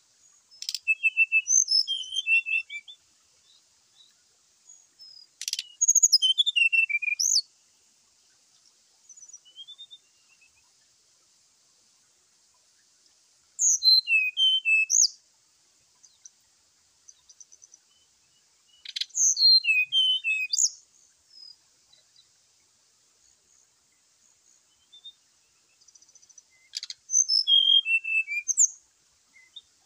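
Brown-chested jungle flycatcher singing its aggressive 'fighting' song: five short bursts of fast, high chirps and whistles, several seconds apart.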